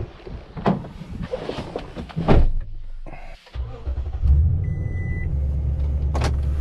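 A door thumps shut, then a Toyota Tundra pickup's engine starts about three and a half seconds in and settles into a steady idle, heard from inside the cab. A short electronic chime sounds just after it starts.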